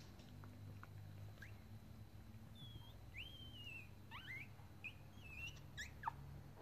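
Four-day-old Shiba Inu puppies squeaking faintly: a few thin, high squeals from about two and a half seconds in, one longer and wavering, over a low steady hum.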